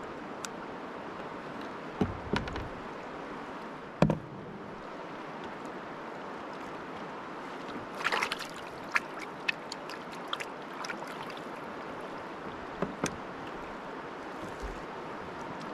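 A swollen river rushing steadily, with a few scattered knocks and clicks. The loudest knock comes about four seconds in, and a short cluster of clicks comes about halfway through.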